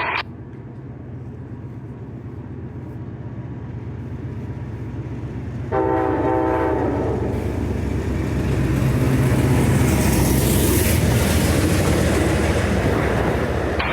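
Amtrak passenger train approaching with a low diesel rumble that grows louder. About six seconds in the locomotive sounds one horn blast of about a second and a half. The train then passes close by with a loud rush of wheels clacking over the rails.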